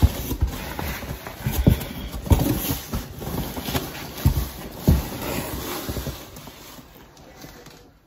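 Large cardboard shipping box being handled and its flaps opened: rustling and scraping of cardboard with several dull thumps as the box is knocked and moved about, quieting near the end.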